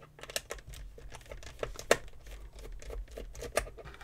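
Small plastic clicks and scratching from a gaming headset's ear cups being handled and worked with a small screwdriver during disassembly. A sharper click comes about two seconds in and another near the end.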